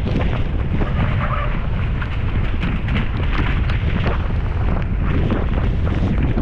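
Wind buffeting an action camera's microphone, a steady loud rumble, while a mountain bike rolls over a rough trail with many quick rattles and knocks from the tyres and frame.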